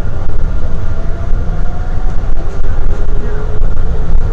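Airport automated people-mover train running at speed: a loud, steady rumble with a faint whine that slides in pitch.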